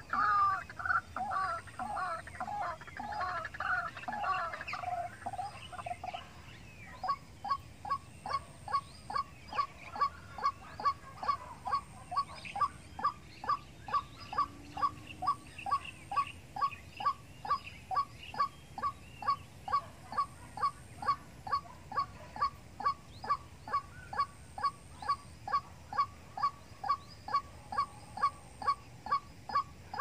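White-breasted waterhen calling. For the first several seconds it gives a harsh, rapidly repeated croaking call, then after about seven seconds it switches to a long, steady series of short clipped notes, about two a second.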